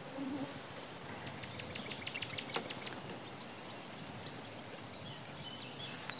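Steady outdoor background noise. About a second in comes a short run of rapid, high, evenly spaced ticks, with one sharper click a little later.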